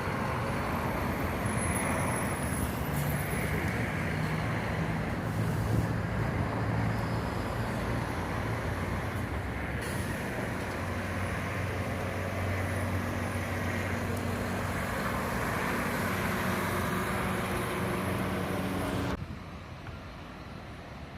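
Bus engine running close by over steady traffic noise; the sound drops off suddenly near the end.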